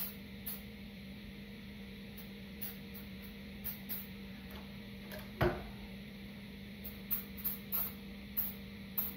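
Short spritzes of aerosol lubricant sprayed onto a squeaking motorcycle side stand pivot, several in quick succession near the end, with one dull knock about five and a half seconds in.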